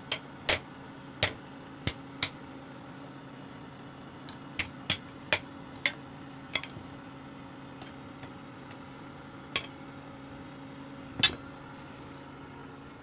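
Hand hammer striking red-hot steel on a small steel anvil: about a dozen irregularly spaced, ringing metallic clanks, the loudest near the end, over a steady low hum.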